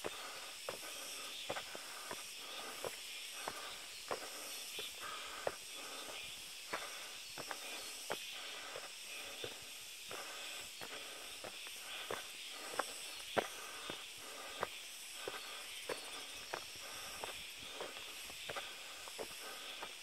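Footsteps of someone walking along a dirt forest path strewn with twigs and leaf litter, about two steps a second, over a steady high hiss.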